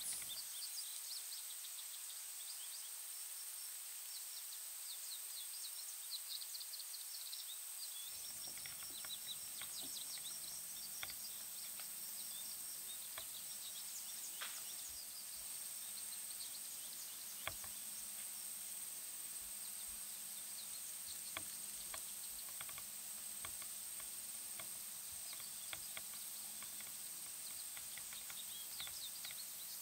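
Quiet woodland ambience: small bird chirps come and go in clusters over a steady faint high-pitched hiss, with occasional light ticks and rustles.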